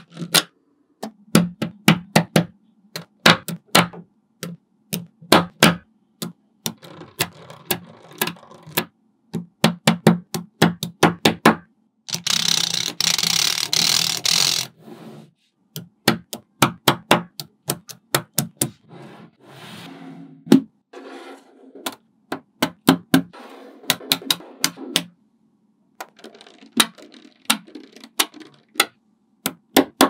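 Small magnetic balls clicking as they snap together, many sharp clicks at uneven intervals, with about two seconds of continuous clatter near the middle.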